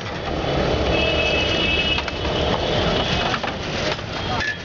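Busy roadside street-food stall noise: traffic running behind scattered sharp clicks and knocks.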